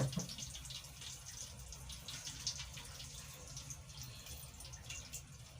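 Faint splashing and dripping of the conditioner mixture in its container, with light scattered clicks, after a knock right at the start.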